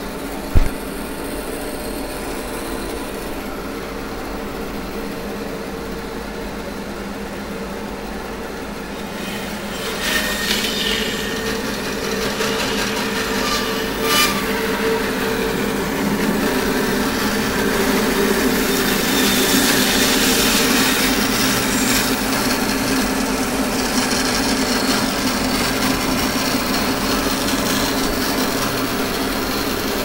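Bandsaw running, its blade cutting into a block of red ironbark from about ten seconds in and slicing off a slab of bark-covered wood, the cutting noise rising and staying up. A single sharp knock comes just after the start.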